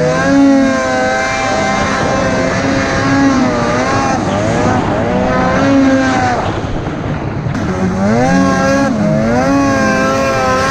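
Polaris Matryx RMK 850 snowmobile's two-stroke twin engine revving up and down under load in deep powder, the revs dipping briefly about two-thirds of the way through before climbing again.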